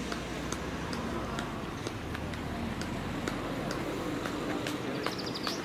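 Footsteps of a group of runners passing on a tarmac road: a run of quick shoe strikes, a few a second. A bird chirps briefly near the end.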